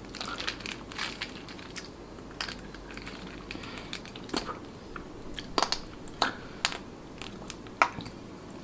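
Plastic sauce sachet crinkling and crackling as it is torn and squeezed out, heard close up as a run of small crackles with a few sharper clicks.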